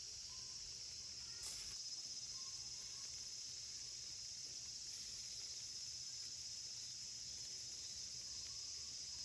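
A steady chorus of insects shrilling, one high unbroken drone.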